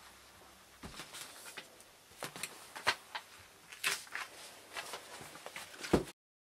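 Photocopy paper being peeled off a plywood board and handled: scattered, intermittent paper rustles and crinkles, with a soft knock near the end before the sound cuts off suddenly.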